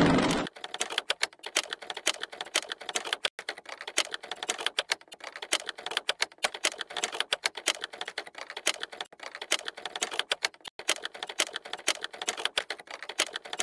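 A loud Mk3 Toyota Supra exhaust cuts off about half a second in. Rapid, irregular typewriter-key clicking follows, several clicks a second.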